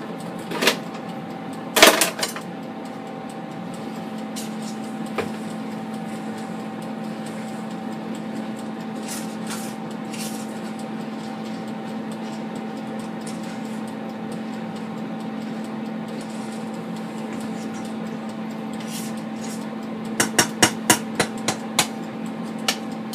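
Steady hum of a Della XL air fryer's fan running, under a wooden spoon knocking against the metal inner pot of a rice cooker: two sharp knocks about a second in, then a quick run of taps near the end.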